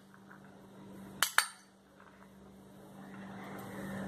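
A steel spoon clinks twice against a glass bowl about a second in, as chopped cucumber is scraped out. A low steady hum runs underneath.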